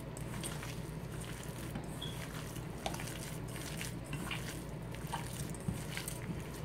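Hands squishing and kneading a wet ground-lamb meatball mixture in a bowl: soft, irregular squelches over a steady low hum.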